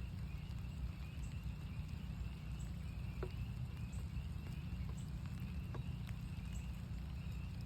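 A distant chorus of northern spring peepers, a steady high band of peeping, over rain with a low, steady rumble and scattered drops ticking on nearby surfaces.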